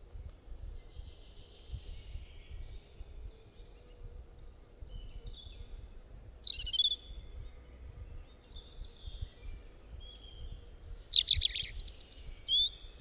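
Robin singing: runs of short, quickly falling chirps in groups, with the loudest, busiest phrase near the end, over a low steady background rumble.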